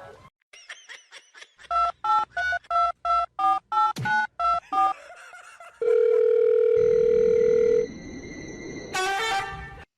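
Touch-tone telephone keypad beeping about ten times in quick succession as a number is dialled, followed by a loud steady tone for about two seconds.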